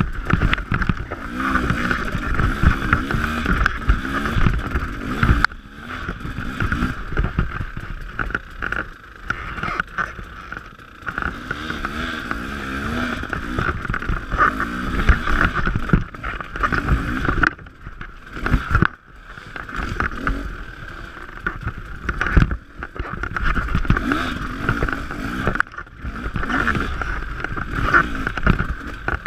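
Dirt bike engine revving up and down with the throttle while it is ridden over rough trail, swelling and dropping back every few seconds, with a few sharp knocks from the bumps.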